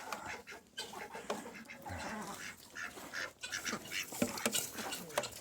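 Ducks quacking in short, irregular calls, a few of them falling in pitch near the end.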